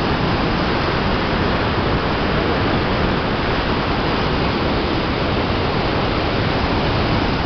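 Whitewater rapids of a fast mountain river rushing over boulders: a loud, steady rushing noise that does not let up.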